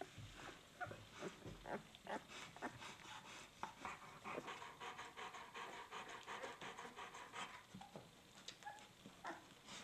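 Newborn puppies nursing at their mother: faint, rapid wet smacking and breathing, with a few short squeaks.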